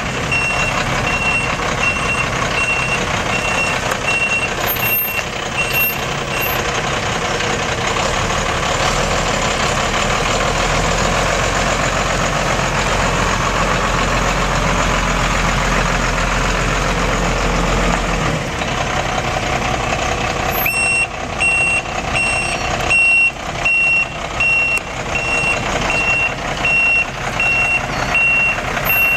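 1992 Ford F800 single-axle dump truck manoeuvring with its engine running, its backup alarm beeping about twice a second while it reverses. The beeping stops after about six seconds, leaving the engine alone with a heavy low drone, and starts again about two-thirds of the way through.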